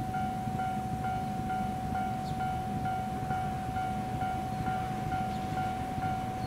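Railway level-crossing warning bell ringing in even repeated strokes, a little over two a second. Beneath it is the low rumble of an approaching JNR 115-series electric train.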